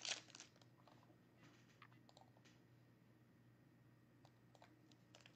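Foil wrapper of a baseball card pack crinkling briefly as it is torn open, then near silence with a few faint scattered clicks and crackles.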